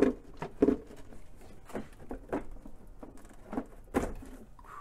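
About six irregular light clicks and knocks of plastic air cleaner housing parts being handled and pulled loose.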